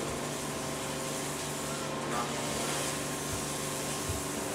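A steady machine hum with an even hiss, like a motor running without a break, with two soft low bumps late on.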